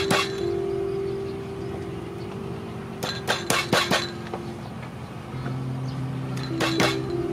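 Knife blade chopping on a cutting board in short runs of sharp knocks: a pair at the start, a quick cluster of five or six about three seconds in, and another pair near the end.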